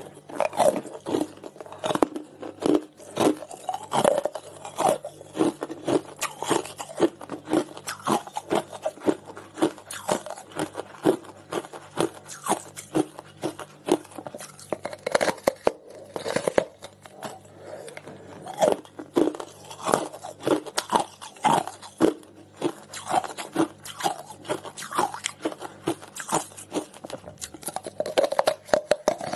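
Hard ice being bitten and chewed close to the microphone: a continuous run of sharp, cracking crunches, several a second, as pieces are bitten off the frozen block and ground between the teeth.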